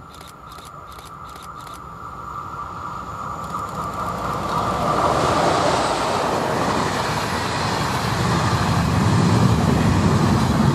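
An EP09 electric locomotive and its Intercity passenger coaches pass at speed. A steady high tone sounds as the train approaches, then it grows louder into a rush of noise about halfway through, followed by the rhythmic low clatter of the coaches' wheels going by close at hand.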